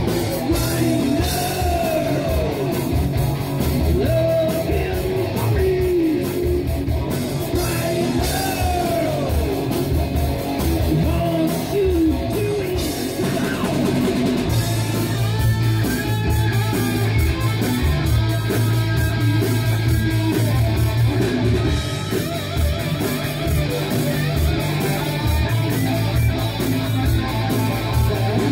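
Heavy metal band playing live: distorted electric guitars over bass and a drum kit, with a melody line bending up and down in pitch during the first half.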